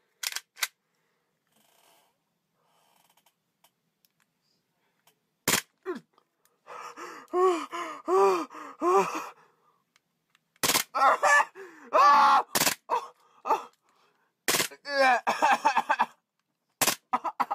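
Gas-powered replica Glock 18 pistol fired in short full-auto bursts, each a sharp crack, with a toothbrush mounted on its slide and pressed into a man's mouth. Between the bursts come his strained, wavering cries of pain.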